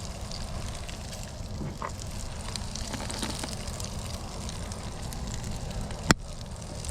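Bacon-wrapped kingfish rolls sizzling in bacon grease on a barbecue pit, a steady hiss with scattered small pops, and one sharp click about six seconds in.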